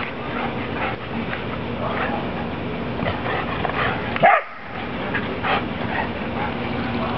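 Dogs barking in play along a fence: short, repeated barks, with one louder bark about four seconds in that drops in pitch.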